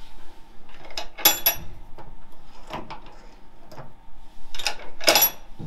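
Newly mounted hydraulic handbrake lever being worked by hand: several sharp metallic clacks, the loudest about a second in and near the end, some with a short ring.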